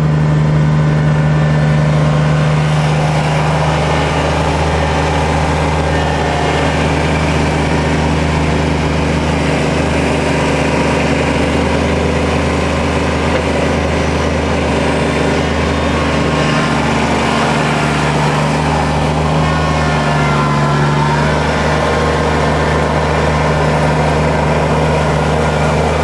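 Kubota tractor's diesel engine running steadily at a constant speed.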